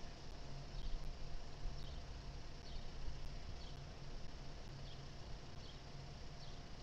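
Outdoor ambience: short high chirps that dip in pitch, repeating about once a second, over a low hum that swells and fades.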